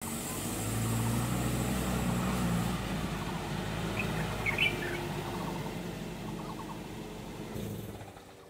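Vehicle engine and road noise, a steady rumble with a low hum that slowly fades away, with a few short bird chirps about four seconds in.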